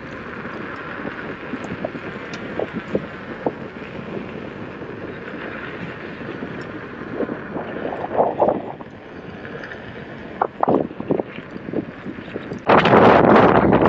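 Wind rushing over the microphone of a rider on a moving motorcycle, a steady hiss with a few short knocks, turning into a much louder wind rush near the end.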